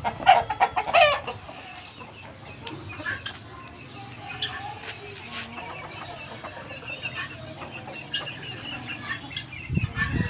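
Guinea fowl calling: two loud, wavering calls in the first second, then quieter calls scattered through the rest. A low rumble comes in near the end.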